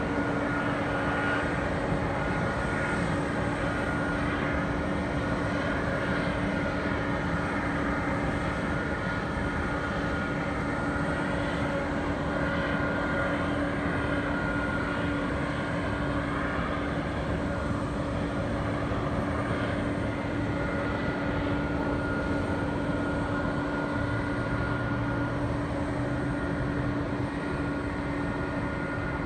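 Steady jet engine noise from airliners taxiing at idle: an even rumble with a constant low hum and a fainter steady whine above it.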